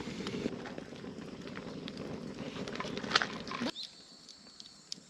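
Wood fire crackling and popping as the logs burn down toward embers, with sharp pops scattered through it; the sound drops off abruptly to a much quieter background about three-quarters of the way through.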